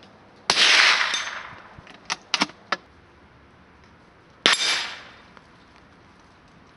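Two shots from a bolt-action .22 LR rifle (an SDM copy of the Mauser 98K) firing high-velocity ammunition, about four seconds apart, each a sharp crack with an echoing tail. Between them the bolt is worked, heard as a quick run of four metallic clicks.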